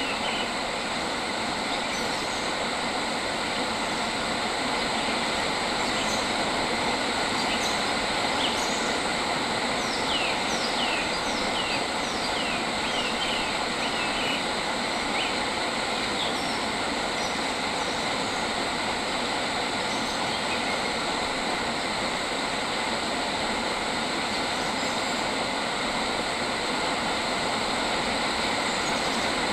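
Steady, dense nature ambience with a constant high drone, and a bird giving a quick run of short falling chirps from about eight seconds in to about sixteen seconds in.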